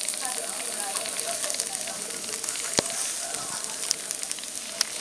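Small propane-butane ceramic gas burner hissing steadily under a model 3-inch copper vertical boiler, with crackling and sizzling as the boiler raises steam. A single sharp click comes a little before three seconds in.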